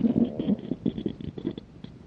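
A person's empty stomach growling from hunger: a rapid, irregular run of low gurgles and pops, loudest in the first half second and thinning out toward the end.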